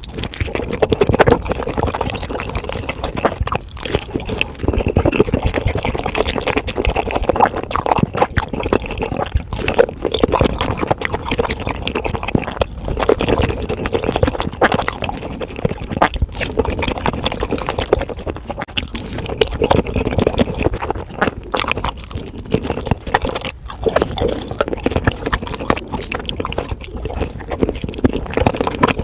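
Close-miked chewing of fried chicken: continuous wet mouth sounds with many small clicks and smacks.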